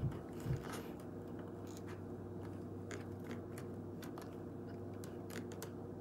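Faint, scattered little clicks and ticks from someone sipping at a plastic drinking straw and fingering the straw in a cardboard cup holder, over a steady low hum.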